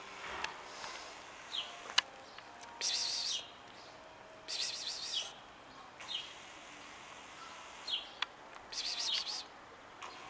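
Small birds chirping and calling in short bursts every few seconds, with quick falling notes between them, over steady outdoor background noise; a single sharp click about two seconds in.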